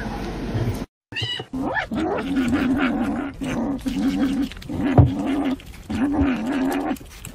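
A cat making a low, wavering hum-like call over and over, in short stretches of half a second to a second, while it eats from a pumpkin. A sharp click comes about five seconds in.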